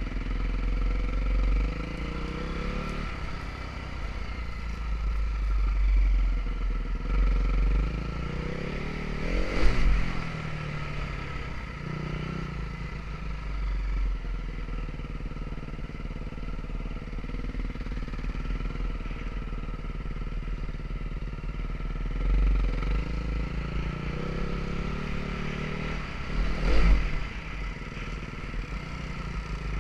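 KTM quad's single-cylinder engine running under way, its revs rising and falling with the throttle, with two sharp rev bursts, one about ten seconds in and one near the end. A heavy low rumble of wind buffets the helmet-mounted microphone.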